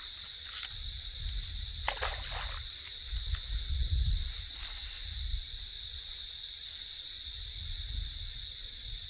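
Chorus of insects calling: a steady high trill with a higher chirp repeating a few times a second, with low rumbling and a few faint knocks about two seconds in.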